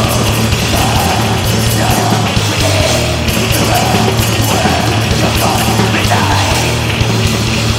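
Death/black metal recording: distorted electric guitar, bass and drums playing a dense, unbroken wall of sound.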